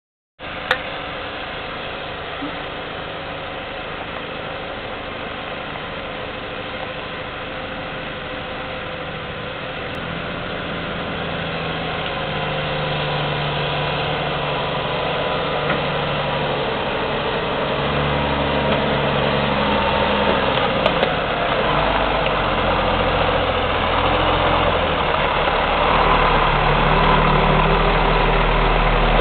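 Log-laden ERF EC11 timber truck's diesel engine running as the truck approaches, growing steadily louder, with a deep engine drone strongest in the last third. A sharp click comes right at the start.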